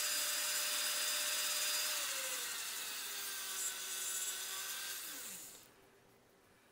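Foot-pedal-controlled rotary tool with a diamond grinding bit, whining as it grinds down the epoxy repair on a thin porcelain petal. Its pitch drops about two seconds in, and it spins down and stops shortly before the end.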